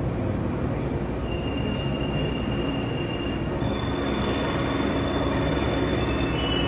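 Digital piano sounding jumbled clusters of notes as a cat's paws press the keys. The notes hold while it stands on them, with new high notes coming in about a second in, near the middle and near the end.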